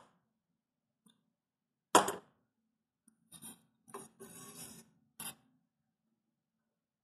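A sharp click about two seconds in, then a G10 Garolite build sheet sliding and scraping off an Ender 3 V2 3D printer's aluminium bed for about two seconds, ending with a light tap.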